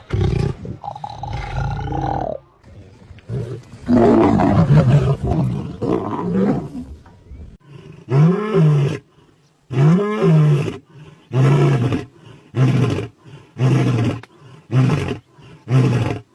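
Lion roaring: a few long, deep roars, then two that rise and fall in pitch. They end in a steady run of short grunts, a little more than one a second.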